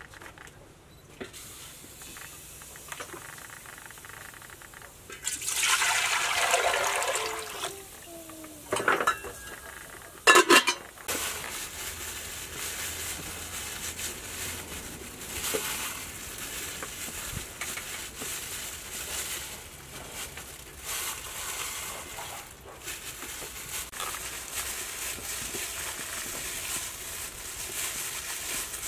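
Water poured into a pot for about two seconds, starting about five seconds in, then a couple of sharp kitchenware knocks around ten seconds in. After that come quieter handling sounds and plastic-bag rustling as minced pork is squeezed from a bag into bitter gourd pieces.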